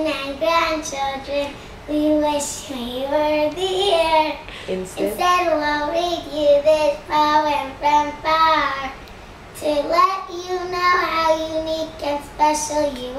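A young girl singing a birthday song solo, holding sustained notes phrase after phrase.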